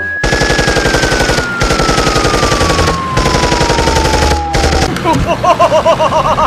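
Rapid machine-gun fire for nearly five seconds, a cartoon gun sound effect, with a single whistle-like tone sliding slowly downward under it. Near the end the firing stops and a warbling, wavering pitched sound takes over.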